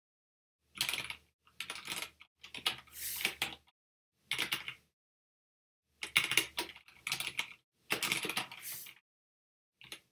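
Typing on a computer keyboard: short bursts of rapid keystrokes separated by pauses of silence, the last burst very brief near the end.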